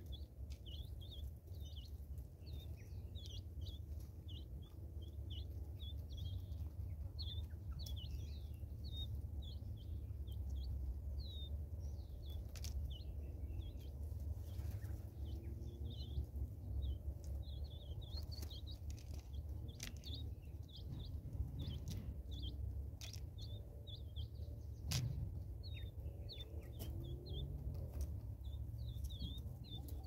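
Small birds chirping continuously in quick, short, high chirps, with a few sharp taps scattered through and a steady low rumble underneath.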